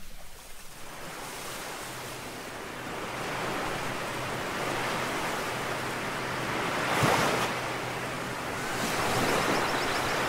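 Ocean surf: small waves breaking and washing up a sandy beach, a steady rushing that swells and ebbs, loudest about seven seconds in.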